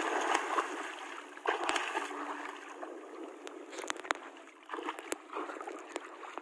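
Water splashing and sloshing in uneven surges, with several sharp clicks or knocks.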